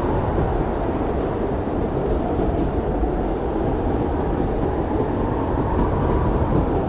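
Blizzard wind blowing steadily: a low, dense rush of noise that swells and eases a little without ever dropping away.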